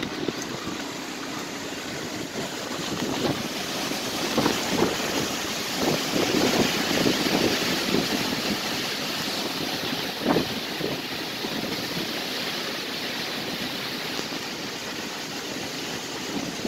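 Hurricane winds rushing through the trees, swelling in stronger gusts about four to eight seconds in, with a brief sharper burst about ten seconds in.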